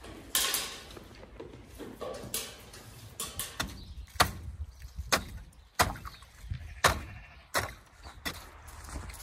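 A wooden stick striking and breaking the ice on a frozen galvanised water trough, sharp knocks about once a second.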